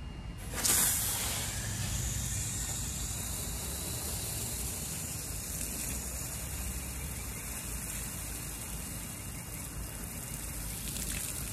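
A garden hose spray wand is turned on about half a second in and sprays water steadily onto the ground with an even hiss. The water is left running to flush out water that has sat hot in the hose, until it runs cool.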